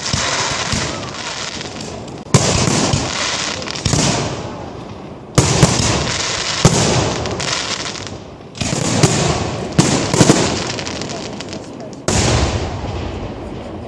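Aerial fireworks shells bursting: about eight loud bangs a second or two apart, each followed by a hissing, crackling tail that fades away.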